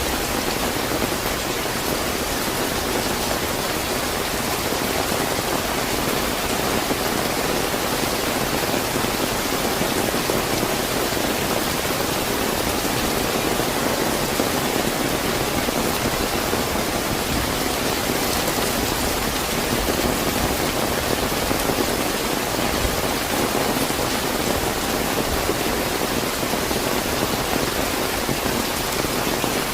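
Steady, fairly heavy rain falling and pattering on surfaces, a dense even hiss with no thunder.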